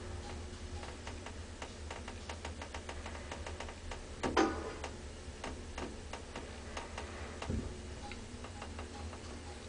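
Elevator cab descending, with a steady low hum and a run of quick, regular ticks at about four a second. A louder clatter comes about four and a half seconds in, and a low thump a few seconds later.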